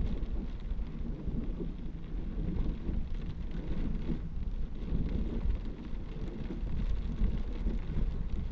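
Heavy downpour drumming on a car's roof and windscreen, heard from inside the cabin as a dense, steady low rumble.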